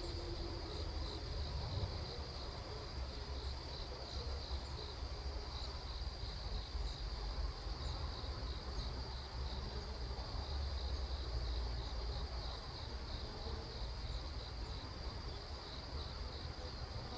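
Crickets chirping in a steady, rapidly pulsing high trill, over a low rumble.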